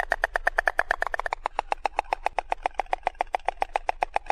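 Stork clattering its bill: a fast, even run of hollow wooden clacks, about ten a second.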